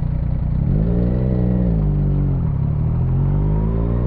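Yamaha MT-09's three-cylinder engine under way. The revs climb about a second in, drop back around the middle, then climb again steadily, heard through a microphone in the rider's helmet.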